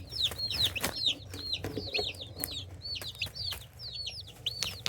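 Baby chicks peeping: a steady stream of short, high, down-sweeping peeps, several a second, from a group of newly hatched chicks.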